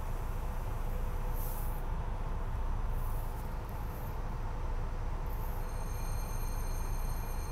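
Steady rumble and hum inside a SEPTA Regional Rail passenger car, with several short hisses. About six seconds in, a high, steady whine joins.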